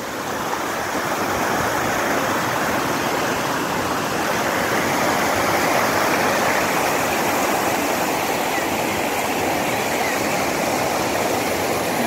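Water pouring over a ledge into churning white water: a steady rushing.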